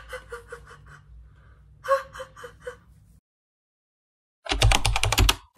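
A woman laughing in short breathy bursts, twice. After a second of silence, near the end, comes a brief loud rhythmic burst with a deep bass.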